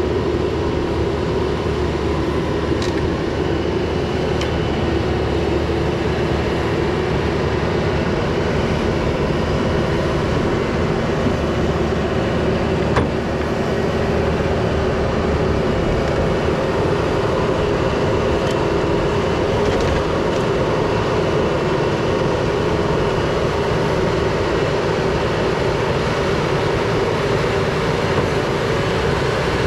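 SANY SLB95 backhoe loader's diesel engine running steadily, with a few light ticks and one sharper click about halfway through.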